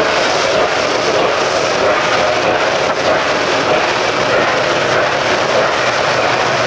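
C&O 614 4-8-4 steam locomotive letting off steam with a loud, steady hiss, with no exhaust beat.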